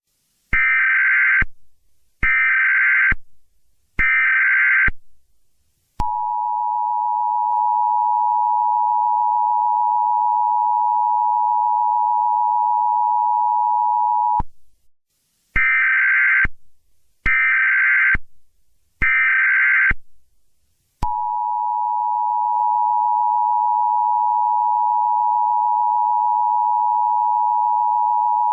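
Emergency Alert System tones. Three short bursts of warbling SAME header data are followed by the steady two-tone attention signal, held for about eight seconds. The sequence then repeats: three more data bursts and the attention signal again.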